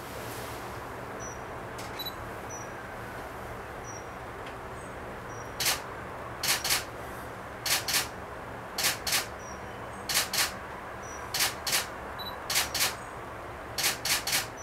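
Camera shutter firing repeatedly: sharp clicks in pairs, about one pair every second and a quarter, starting about six seconds in. Faint short high peeps sit under a steady outdoor hiss.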